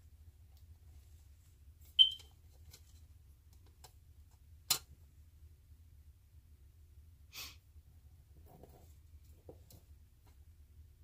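Artificial flower stems being handled and arranged: a few scattered clicks and short rustles over a low hum. A brief high ping about two seconds in is the loudest sound.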